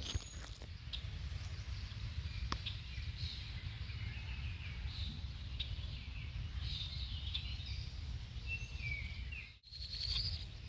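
Wild birds chirping in short calls and sweeps over a steady low outdoor rumble. The sound drops out briefly near the end.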